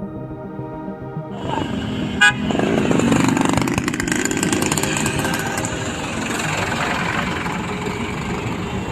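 Outdoor street noise with vehicles and motorcycles running, and one short, loud horn toot about two seconds in. Intro music plays for the first second or so.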